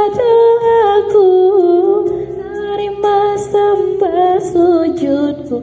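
A woman singing long held notes with wavering, ornamented runs that step lower near the end, over a faint musical accompaniment. Her voice is thin and shrill from a cough and cold.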